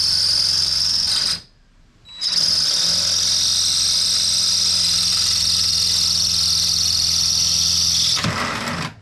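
Cordless drill with a quarter-inch bit drilling out the screw holes in a motorcycle's rear fender, running at a steady speed with a high whine from the bit cutting. It stops about a second and a half in, then starts again a moment later and runs for about six seconds.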